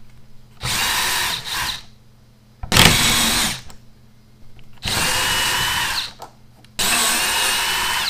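Cordless drill-driver running in four short bursts of about a second each, backing out the four bolts that hold a garage door hinge.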